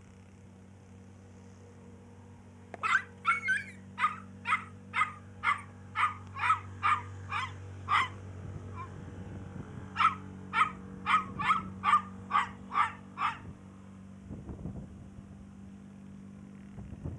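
A small puppy yapping at a larger dog in short, sharp, high-pitched yaps: about two a second for some five seconds, a short pause, then a quicker run of about ten more.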